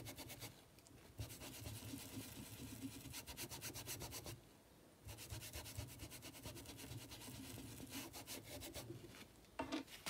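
Paintbrush bristles scrubbing paint into fabric stretched on a board, in quick small strokes, with brief pauses about half a second in and about four seconds in.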